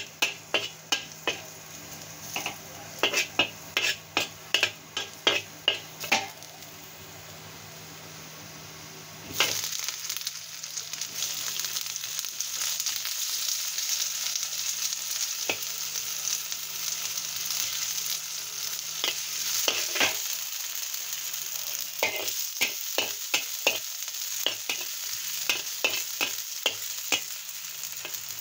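Garlic frying in oil in a wok, with a spatula scraping and knocking against the pan in quick strokes. About nine seconds in, the sizzle jumps louder and stays steady as sliced rounds go in to fry, and the spatula strokes carry on through it.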